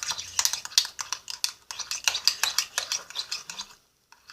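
A spoon stirring thick shampoo-and-salt slime in a small bowl: a quick, uneven run of clicks and scrapes of the spoon against the bowl that stops near the end.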